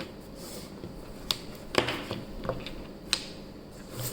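Small metal flashlights being handled: a few sharp light clicks and taps, one near the middle followed by a brief rustle.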